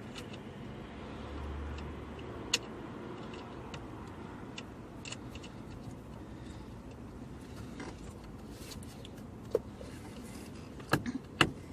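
Scattered light clicks and metallic taps of small parts and tools being handled, over a steady low background noise. A sharper click comes about two and a half seconds in, and a few louder clicks come near the end.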